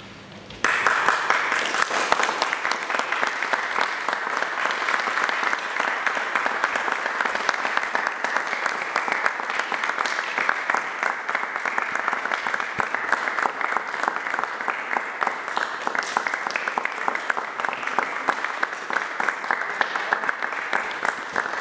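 Audience applauding. The clapping breaks out suddenly about half a second in and carries on steadily.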